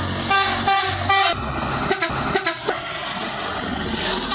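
A bus's multi-tone musical horn plays a short run of quick notes that stop about a second in. A low vehicle rumble and street noise follow, with a few short sharp sounds, and the horn tune starts again at the very end.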